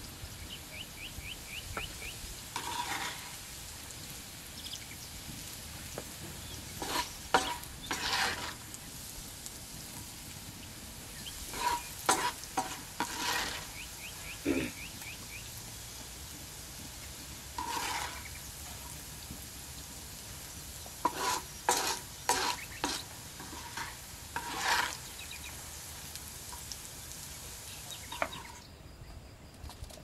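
Diced potatoes sizzling in oil in a wide, shallow metal pan. A spatula scrapes and stirs against the pan in short bursts every few seconds.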